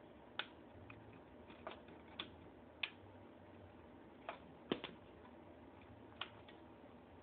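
Plastic push-buttons on an answering machine clicking as a finger presses them: about ten irregular single clicks, with a close double click a little before the middle, over a faint steady hum.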